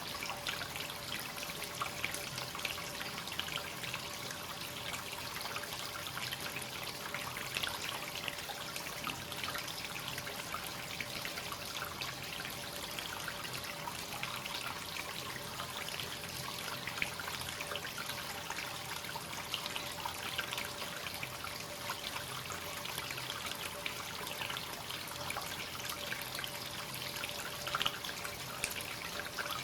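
Free-flowing hot-spring water pouring steadily into a bath tub, a continuous trickling splash with small drips.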